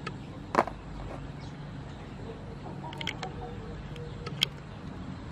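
Raw river prawns being cleaned by hand over a steel bowl of water: a few sharp clicks and snaps of shell and tool. The loudest comes about half a second in, a couple more near three seconds, and one about four and a half seconds in.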